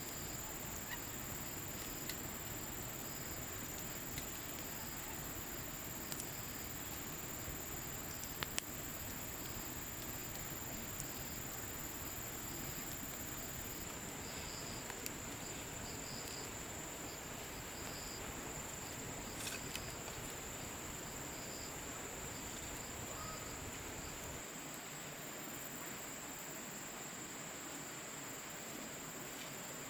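Insects trilling, a steady high-pitched drone with shorter repeated chirps above a hiss of forest background, and a few faint clicks.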